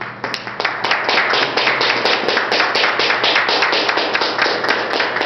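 Applause from a small group of people, breaking out at once, with single hand claps standing out from the rest.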